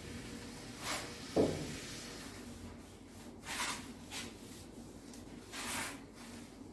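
A duster wiping marker writing off a whiteboard in several separate rubbing strokes. There is a short knock about one and a half seconds in.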